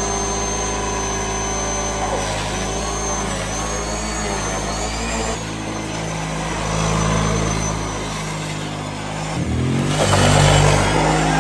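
Kawasaki Prairie 650 ATV's V-twin engine held at high revs in a burnout, the rear tyres spinning on wet pavement, with a high whine that wavers as the throttle varies. About nine and a half seconds in, the revs dip sharply and then climb again, louder, as the quad drives off.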